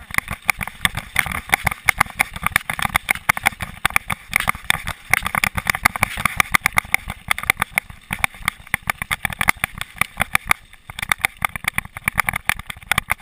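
Mountain bike rattling and clattering as it rolls fast over a rough dirt trail: a dense, irregular run of knocks and clicks from the bike and its camera mount, over a steady low rumble of wind on the microphone.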